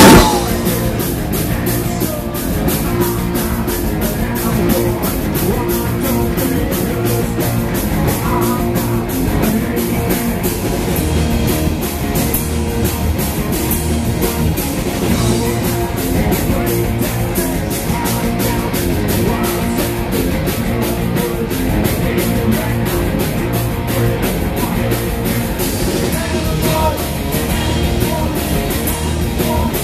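Punk rock band playing live: electric guitar, bass and a fast, driving drum kit, with a male voice singing. The music is loud and even throughout.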